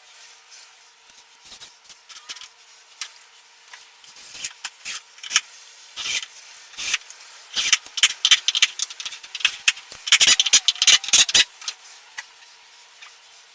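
Irregular hand strokes scraping and rubbing on wood, sparse at first, then coming thick and fast and loudest in the second half before stopping.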